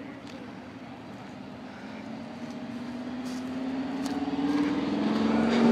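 A car's engine approaching, growing steadily louder while its pitch rises slightly.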